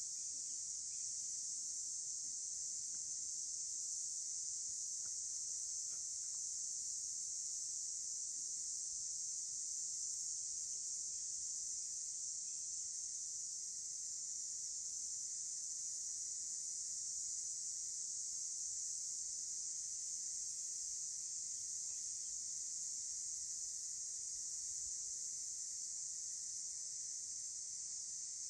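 Steady, high-pitched insect chorus, unbroken and even, with no pauses or rhythm.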